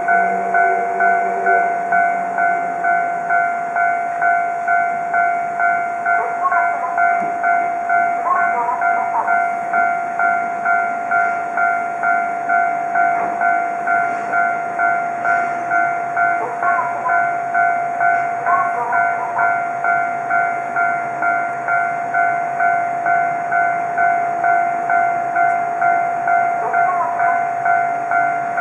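Japanese level-crossing warning bell ringing steadily, a repeated electronic ding about twice a second.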